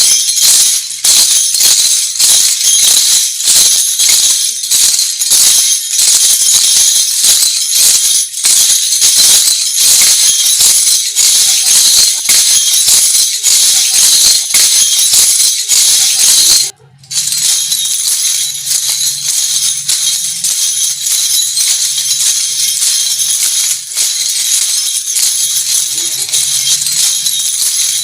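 Lezim, the wooden folk-dance bow with metal jingle discs, clashed and shaken in a steady rhythm as a bright, dense jingling. It stops briefly about seventeen seconds in, then resumes with a faint low hum beneath it.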